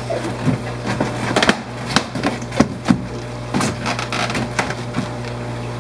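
Plastic fish-shipping bags being handled and opened: irregular crinkles, clicks and taps, some of them sharp, over a steady low hum.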